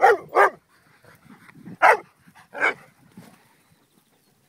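A dog barking at a ball held in a ball launcher: two barks in quick succession at the start, then two more, about two seconds and two and a half seconds in.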